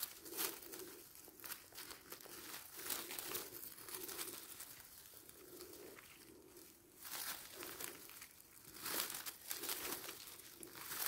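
Faint, irregular rustling and crackling of forest undergrowth, with a cluster of louder crackles about nine seconds in.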